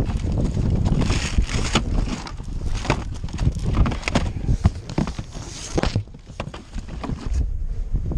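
Footsteps on snow-covered ground, a steady irregular run of soft crunches and knocks, mixed with the rustle of clothing and carried toy boxes.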